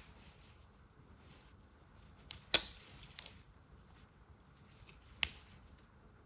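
A few sharp clicks and light knocks from small pocket knives being handled, the loudest about two and a half seconds in, with quiet between them.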